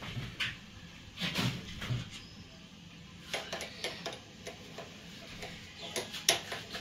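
Scattered light clicks and knocks of kitchen handling, a few short strokes spread irregularly, the sharpest two close together near the end.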